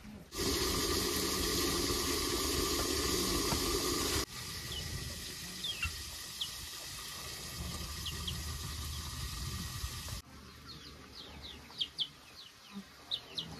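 Water running or pouring, loud for about four seconds and then cut to a softer rushing. Small birds chirp in short, high, falling calls, more and more of them near the end.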